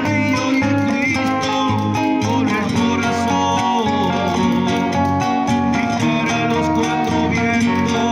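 Two nylon-string classical guitars played together in a folk song.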